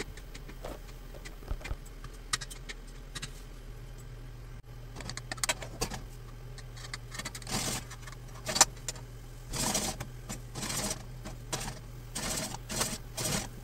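Minced garlic and an anchovy fillet in olive oil starting to sizzle in a frying pan as it heats: scattered crackles and pops, with brief spells of sizzling in the second half. A steady low hum runs underneath.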